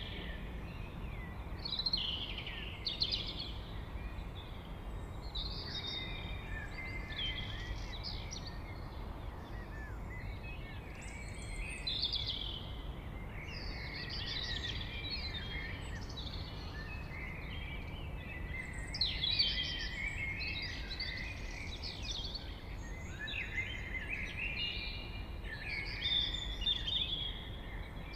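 Blackbird singing a continuous run of fluty, warbling phrases that end in higher twitters, over a steady low rumble of distant town noise.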